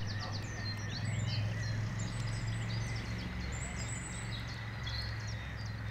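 Small birds chirping over and over, short quick chirps throughout, over a steady low rumble of outdoor background noise.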